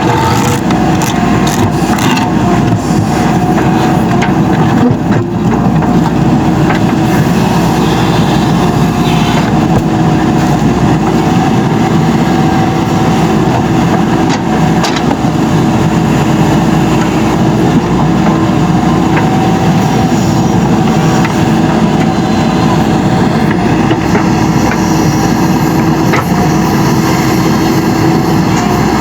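JCB 3DX Super backhoe loader's diesel engine running steadily while the machine works, with a few sharp knocks scattered through.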